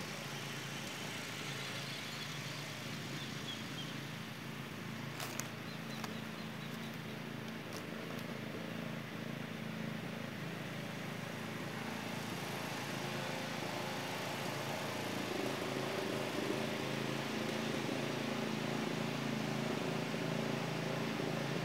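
A steady engine hum, like a motor vehicle running nearby, growing a little louder in the second half. Three short clicks come between about five and eight seconds in.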